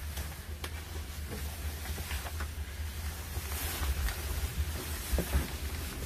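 Low steady rumble with scattered light clicks and rustles: handling noise as a person settles into a school bus driver's seat, with the engine off.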